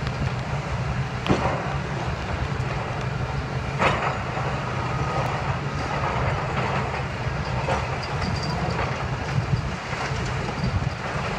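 Demolition excavator's diesel engine running steadily while its grapple breaks into a concrete building, with crashes and clatter of falling debris; two louder crashes come about a second in and about four seconds in.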